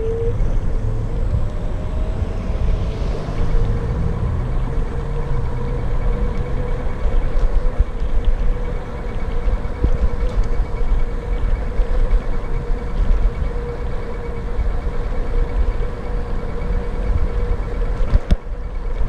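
Electric scooter's motor whining at a steady pitch while riding, rising slightly as it picks up speed at the start, over a steady low rumble. A brief knock comes near the end.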